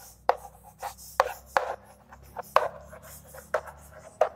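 Chalk writing on a chalkboard: an irregular run of about nine short, sharp taps and scrapes as letters are written.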